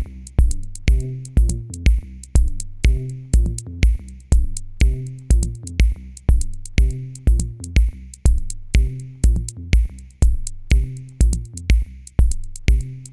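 Electronic background music with a drum-machine beat and a low bass line, steady throughout.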